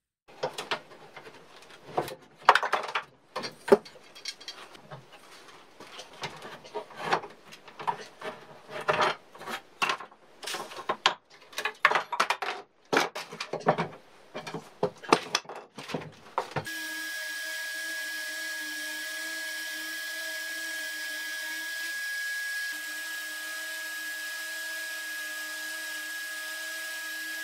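Irregular clicks and knocks of bar clamps being worked on a wooden table frame. About two-thirds of the way in, a random orbital sander starts running with a steady, even hum as it sands a wooden rail.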